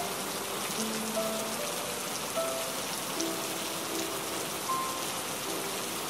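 Steady rain falling, with soft, sparse melodic notes over it: a rain-and-music backing track.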